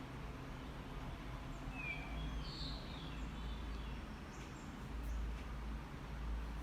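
Steady low background rumble, with a few faint high chirps about two to three seconds in.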